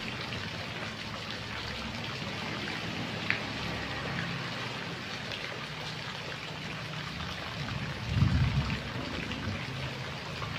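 Rain falling on a puddle and wet ground: a steady patter and hiss of drops. A low rumble swells briefly about eight seconds in.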